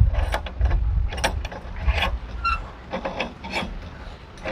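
Metal clicks and scrapes from hand tools and the brass lantern fitting as the threaded valve is turned a fraction further, with a short metallic ring about two and a half seconds in.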